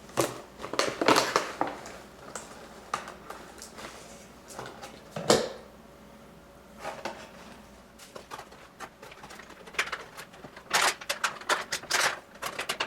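Miniatures box packaging being handled and opened by hand: scattered crinkles, clicks and rustles, with one sharp crackle about five seconds in and a busier run of them near the end.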